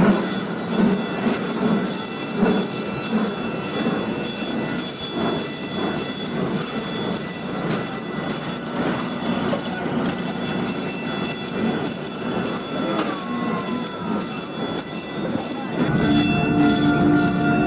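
Narrow-gauge steam train running, with a regular beat of about two strokes a second and a brief falling squeal about two-thirds of the way through. Near the end a held chord of steady tones comes in over it.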